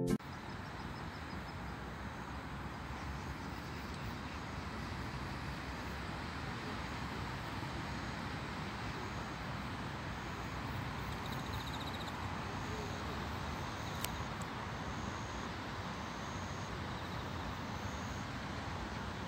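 Steady distant road-traffic hum from the city across the water, with faint high chirps repeating now and then and a single click about fourteen seconds in.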